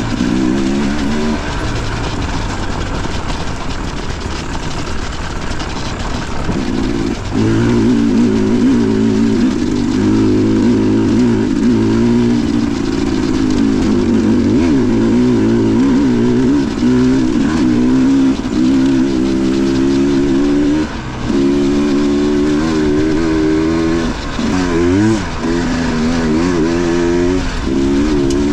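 Dirt bike engine running under load on a trail, its pitch rising and falling constantly as the throttle is worked. The engine note dips briefly a few times in the second half.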